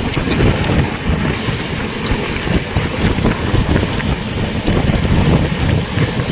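Wind rushing on the microphone over the steady rumble of a moving train.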